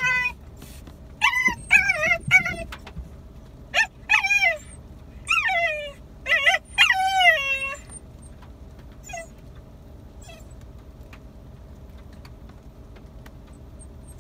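Hokkaido dog whining and yipping: a run of about eight high cries that mostly fall in pitch, over roughly the first eight seconds, then stopping. The whining fits a dog eager for its turn to be led.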